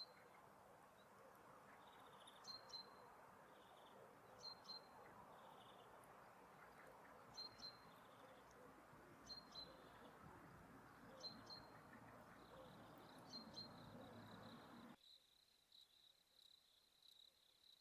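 Faint outdoor ambience: short high chirps, mostly in pairs about every two seconds, over a low hiss, joined near the end by a steady high insect-like trill. The hiss cuts off abruptly near the end.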